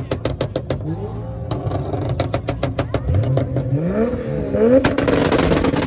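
Turbocharged Toyota 2JZ straight-six in an MK4 Supra running an anti-lag tune. First it fires off rapid strings of sharp exhaust pops and bangs, about ten a second. About three seconds in the revs climb, and from about five seconds in the engine is held at high revs with a loud, harsh crackle.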